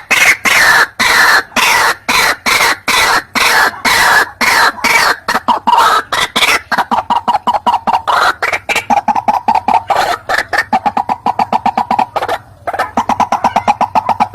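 White-breasted waterhen (ruak-ruak) calling in a fast, unbroken series of harsh repeated notes, about three a second at first and quickening in the second half, with a brief break near the end.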